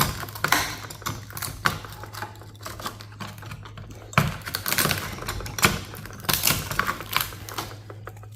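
Irregular sharp clicks, snaps and scrapes of hand tools prying and cutting small metal and plastic parts off server hardware during a teardown, with busier flurries about halfway through and again near the end.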